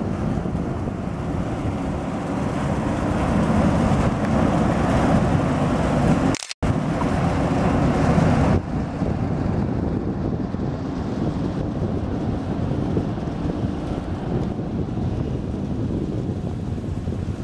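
Steady low rumble from a passing ship, with wind noise on the microphone. The sound cuts out for an instant about six and a half seconds in.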